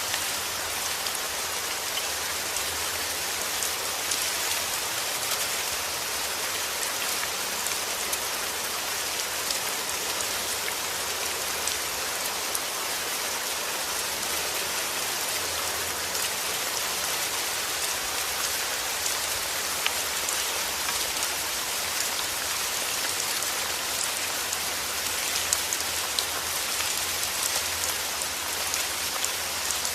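Heavy rain falling steadily, a dense even hiss with many small drop ticks on a hard surface.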